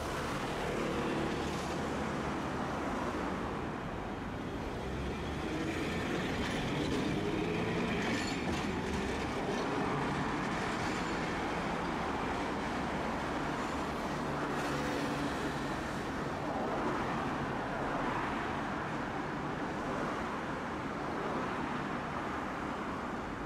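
Tosaden streetcar running along its tracks: a steady rumble of steel wheels on rail with the hum of the traction motors, at an even level throughout.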